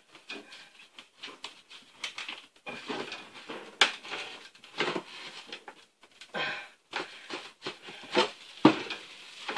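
A man breathing hard and grunting with effort while working overhead at a ceiling light fixture with a screwdriver. Scattered sharp clicks and scrapes of the tool on metal, the loudest about four seconds in and twice near the end.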